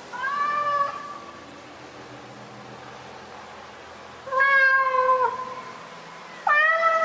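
Three long, drawn-out cat meows, each held at a steady pitch and dipping at the end. The second and third are louder than the first, over a steady background hiss.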